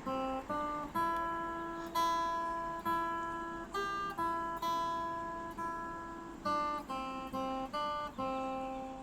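Background music: an acoustic guitar playing a slow run of strummed chords, each struck sharply and left to ring and fade.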